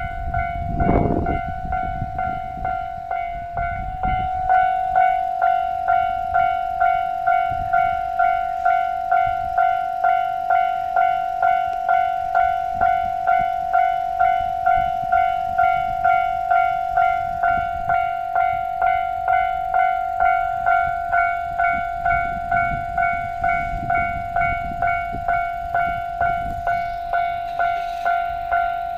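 Japanese level-crossing warning bell ringing: an electronic tone struck over and over, about one and a half times a second. A low rumble swells briefly about a second in and again near the end.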